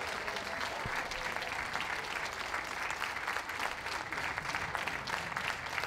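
Audience applauding steadily, many people clapping at once.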